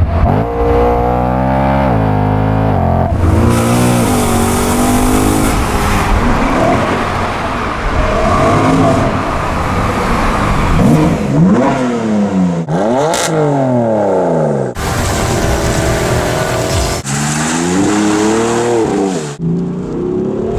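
BMW M3 E92 GTS V8 with an Akrapovič exhaust, revving and accelerating, its pitch climbing and dropping again and again. The sound jumps abruptly every few seconds between different runs.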